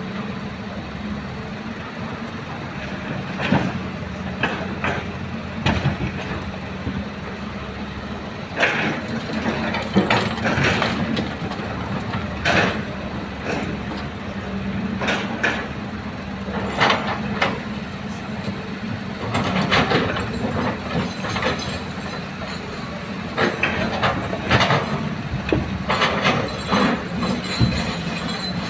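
Excavator's diesel engine running steadily under load, with repeated clanks and knocks as it digs and loads soil into a dump truck.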